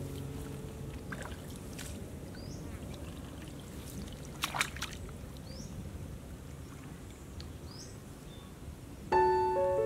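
Footsteps wading through shallow floodwater and wet grass, with small splashes and one louder splash about halfway through. A piano chord fades out at the start, and piano music comes back in near the end.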